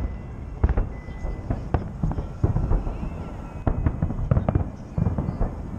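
Aerial fireworks salute going off: a rapid, irregular string of booms and cracks, about a dozen in a few seconds, over a low rumble.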